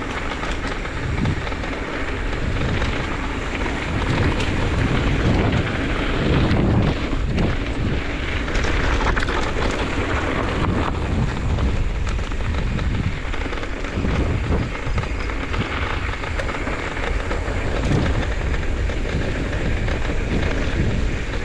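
Steady rattling rumble with wind buffeting the microphone, as from a camera carried along a trail.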